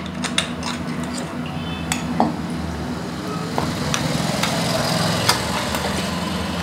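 Steel serving spoon clinking and scraping against a steel container and an enamel pot as ground spice masala is scooped onto chopped chillies: scattered light clicks and taps over a steady low hum.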